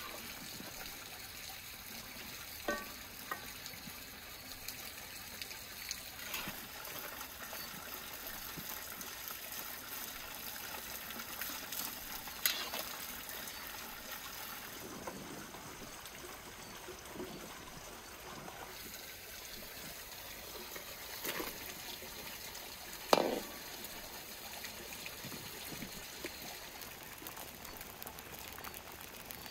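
Hot broth trickling and dripping off a skimmer ladle as boiled dough sheets are lifted out of a steaming pot. A few sharp knocks sound over it, the loudest about two-thirds of the way through.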